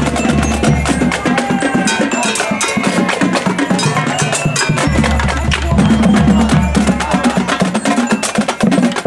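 Marching band drumline playing a fast cadence of snare, tenor and bass drums, with sousaphones sounding low held notes underneath.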